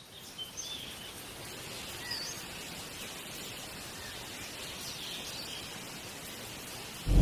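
Several birds chirping and whistling in short scattered calls over a steady outdoor hiss. Loud music cuts in suddenly at the very end.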